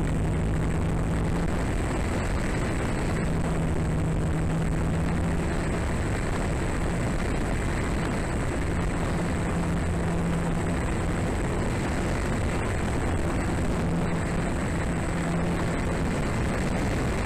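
Radio-controlled model aircraft in flight, heard from a tail-mounted micro action camera: a steady rush of wind over the camera's microphone, with the propeller and motor drone fading in and out several times.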